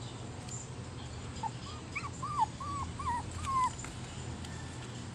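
A puppy whining: a quick run of about six short, high whines over a couple of seconds, starting about a second and a half in, over a steady low hum.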